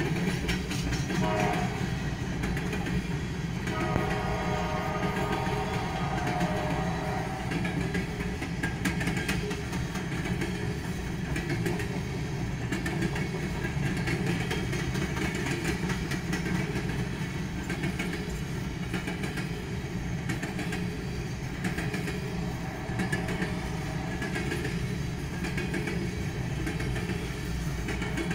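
Coal train hopper cars rolling past at a grade crossing: a steady rumble of wheels on rail with a clickety-clack, heard from inside a car. A higher pitched tone comes and goes over it, strongest in the first few seconds and again near the end.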